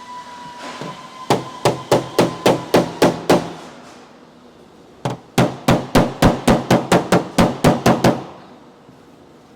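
Hammer blows on the dented quarter panel of a Tesla Model 3, knocking the pushed-in edge back straight. There are two quick runs of sharp metal strikes, about four a second, with a short pause between them.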